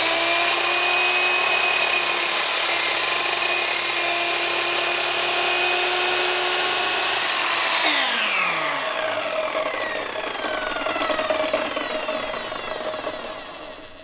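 Compound miter saw running at full speed as it cuts across a cedar board to square its edge. About eight seconds in the motor is switched off and the blade winds down, its whine falling slowly in pitch over several seconds.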